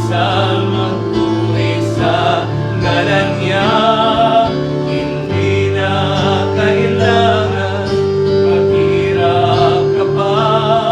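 Gospel song: singing, possibly wordless or unclear backing vocals, over instrumental accompaniment with sustained bass notes.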